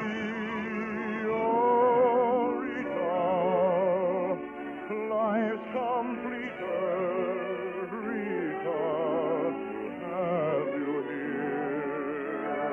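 Operetta-style singing with strong vibrato over orchestral accompaniment, on a 1950 radio broadcast recording.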